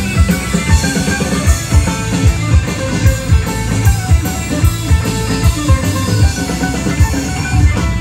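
Live rock band playing through an outdoor PA system: electric guitars over a drum kit with a steady kick-drum beat.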